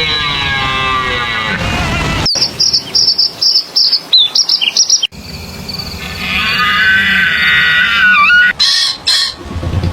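Bird calls in three abrupt segments. First comes a drawn-out call with curving pitch, then quick, high repeated chirps, then a longer warbling call ending in gliding notes.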